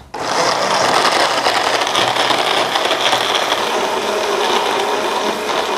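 Electric blender running steadily, starting about a quarter-second in, as it blends seaweed, dates and water into a smooth purée.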